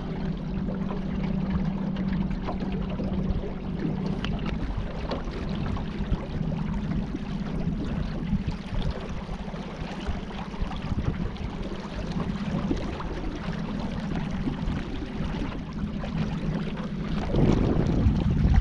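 Out on the river from a boat: a steady low motor-like hum over water noise with scattered small splashes, and wind buffeting the microphone more strongly near the end.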